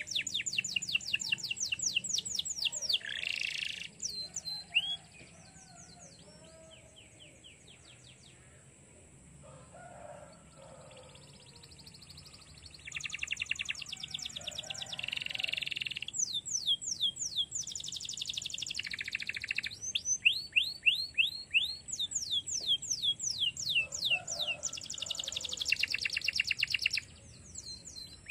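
Domestic canary singing in fast trills of repeated notes that sweep down in pitch. It falls quiet for several seconds about four seconds in, then starts again.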